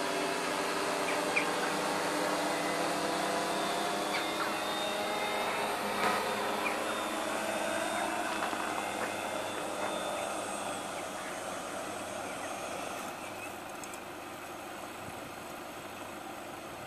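FAE750H hexacopter's electric motors and propellers humming with a steady multi-tone drone during its slow autonomous landing descent. The sound fades and settles lower from about ten seconds in, with the motors still spinning before the throttle is cut.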